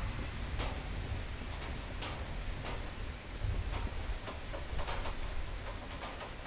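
Rain from a summer thunderstorm falling steadily, with irregular sharp drips ticking on a nearby surface and a low rumble underneath.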